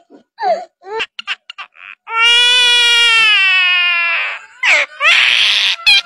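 Common myna calling: a few short whistled notes, then one long wailing note that falls slightly, a rising squeal, and a harsh rasping screech near the end.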